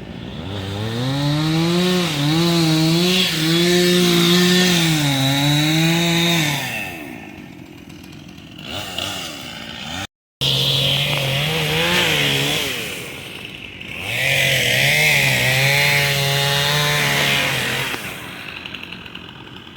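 Two-stroke chainsaw running hard in several long runs, its pitch sagging and rising as it cuts through wood, dropping back between runs.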